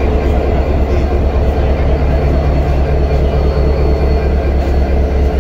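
Bangladesh Railway 6600-series diesel locomotive idling, a steady low engine hum.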